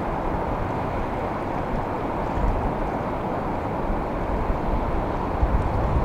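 Steady wash of ocean waves, with an uneven low rumble underneath.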